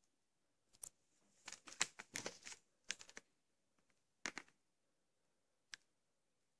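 Handling of a plastic clamshell VHS case: a run of light clicks, taps and rustles starting about a second in, another short clatter a little after four seconds, and one sharp click near the end.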